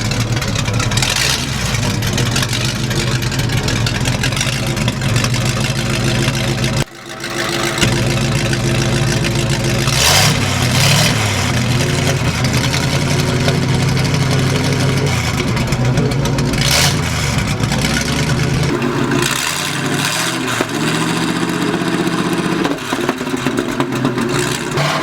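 Ford 370 V8 running with the muffler removed, open exhaust: a loud, raw idle, revved up and back down several times in the second half.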